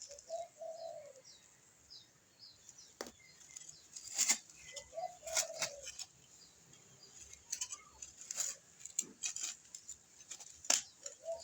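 A dove cooing three times, about five seconds apart, with small birds chirping faintly. Scattered short knocks and scrapes come from digging in the soil.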